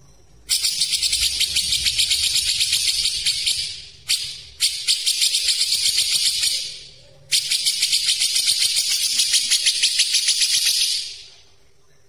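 Grey-cheeked bulbul (cucak jenggot) singing its fast, tightly packed song in three long bursts of rapid high notes, with short breaks at about 4 and 7 seconds.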